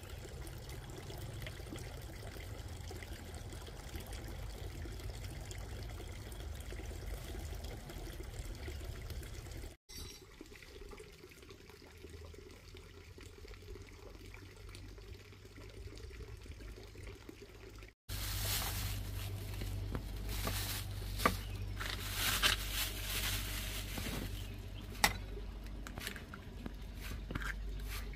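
A cleaver chopping fresh greens on a round wooden chopping block: many sharp, irregular knocks in the last ten seconds or so, the loudest part. Before it come two stretches of steady low outdoor noise, split by a cut.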